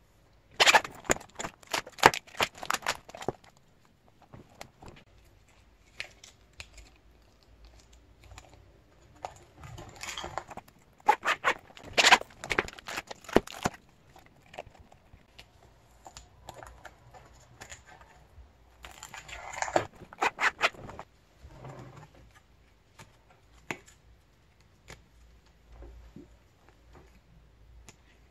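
Clear plastic photocard sleeves and binder pockets crinkling and clicking as cards are handled and slid into them. The rustling comes in three bursts, starting about half a second in, around the middle, and about two-thirds through, with faint handling noise between.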